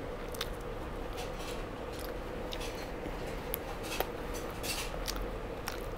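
A person eating a fried chicken wing close to a clip-on microphone: chewing and pulling meat off the bone with the fingers, heard as an irregular string of small wet clicks and crunches.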